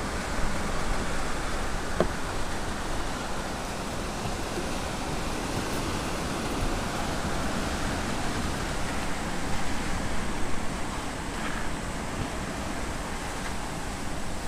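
Steady wind noise rushing on the microphone, with one faint click about two seconds in.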